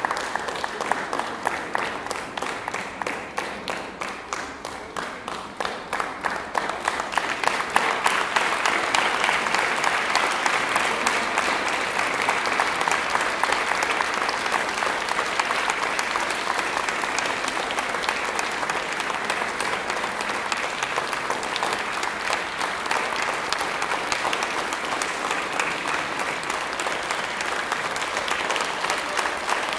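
Audience applauding. The clapping thins a few seconds in, then swells again from about seven seconds and stays dense.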